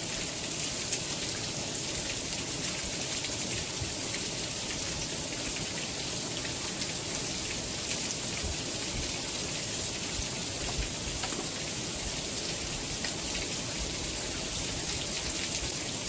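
Steady rain-like patter of water dripping from a roof: a constant hiss dotted with many small drop ticks.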